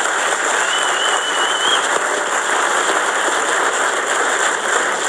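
Studio audience applauding, steady and dense, with a brief whistle from the crowd about a second in.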